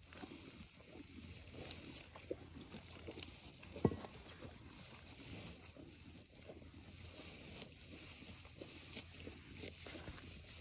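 Hand milking a Jersey cow: milk squirting from the teat into a pail in soft, short spurts, with one sharp knock about four seconds in.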